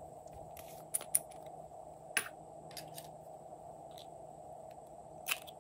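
Small plastic lip balm container being handled, opened and scraped out with a thin metal stick: a handful of sharp plastic clicks, loudest about a second in, with light scraping between them.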